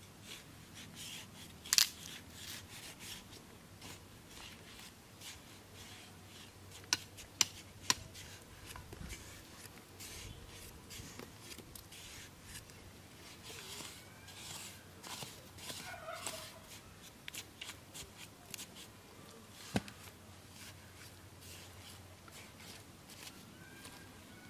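Digging and scraping in wet mud with a small stick and bare hands: soft scraping and squelching, with a few sharp clicks, one about two seconds in and three close together around seven to eight seconds.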